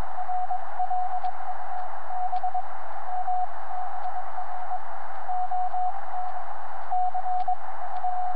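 Morse code from a shortwave transceiver's speaker on the 30-metre band: a single steady-pitched beep keyed on and off in dots and dashes over constant band hiss, with a few faint clicks.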